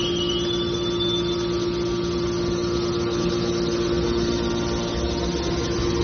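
Aluminum can baler's hydraulic power unit running with a steady hum. A high whine rises in pitch and holds for about the first second and a half.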